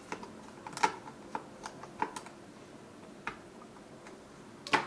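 Small screwdriver driving a tiny screw into a laptop's Wi-Fi card mount: a run of light clicks and ticks in the first two seconds, one more a second later, then a louder clack near the end.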